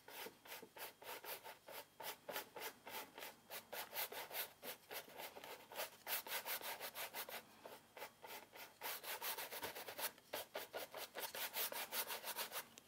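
A wide flat paintbrush brushing lightly over a stretched canvas in quick, regular back-and-forth strokes, blending wet blue paint into the surface. Each stroke is a short, faint scratchy rub of bristles on canvas.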